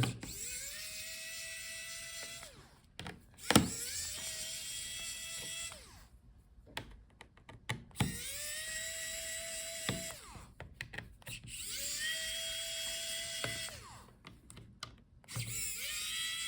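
Small electric screwdriver with a T5 Torx bit backing out the laptop's bottom-case screws. It whirs in about five short runs of roughly two seconds each, each spinning up, holding steady and winding down, with sharp clicks in the gaps between runs.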